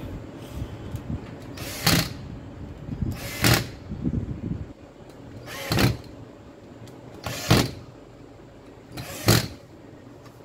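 A cordless drill/driver run in five short bursts of under half a second each, driving the screws of a drill's handle housing.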